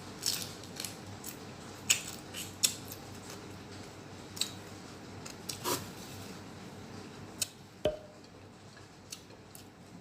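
Crisp, irregular crunching of fried fish being chewed close to the microphone: sharp crackles every half second or so, one of the louder ones a little before the end.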